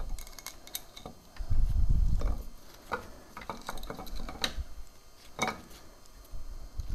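Scattered light metallic clicks and clinks of a camshaft and its cam chain being set into a 600cc motorcycle engine's cylinder head, with a low muffled rumble about two seconds in.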